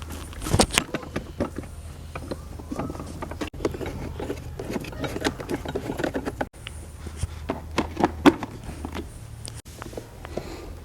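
Restoration work on a child's ride-on toy car: irregular taps, clicks and scrapes of parts being handled and worked, over a low steady hum. The sound cuts off briefly three times.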